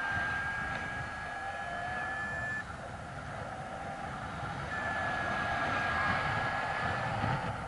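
Wind rushing over the microphone during a paraglider's descent, with a steady high whistle that cuts out about two and a half seconds in and comes back near the middle before fading.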